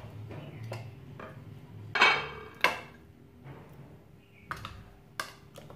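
A metal spoon clinking and knocking against a ceramic bowl a few times as raw chicken drumsticks are laid into yogurt marinade; the two sharpest clinks come about two seconds in.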